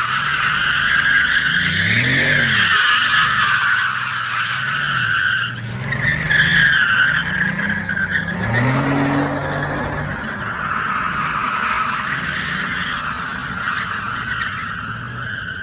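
A car drifting: a long tyre squeal that wavers in pitch, with the engine revving up and down beneath it in several surges, the squeal easing off near the end.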